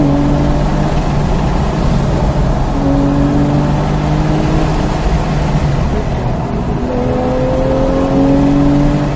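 2016 Porsche 911 GTS flat-six engine running under power at track speed, heard from inside the cabin over heavy tyre and road noise. Its pitch climbs in the first half, eases off in the middle and climbs again near the end.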